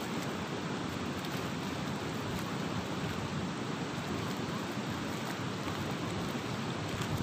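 Steady rushing noise of a fast-flowing, swollen river.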